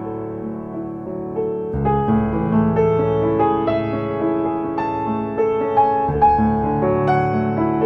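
Instrumental background music: a melody of single notes over held chords, growing fuller in the low range about two seconds in.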